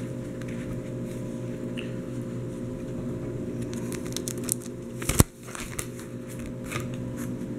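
Plastic binder pocket pages crinkling and rustling as a page of trading-card sleeves is handled and turned, with one sharp click about five seconds in. A steady low hum runs underneath.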